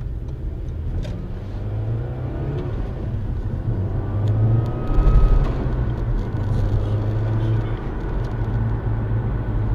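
Car driving, its engine and road noise making a steady low drone, briefly louder about five seconds in.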